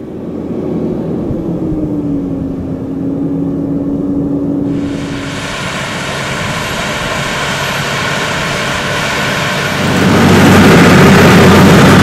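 Case IH tractors' diesel engines working hard in the field, first the Puma 240 CVX pulling a 6 m rotary power harrow. About ten seconds in the sound steps up louder as the Optum 300 CVX passes close, pulling a six-furrow reversible plough.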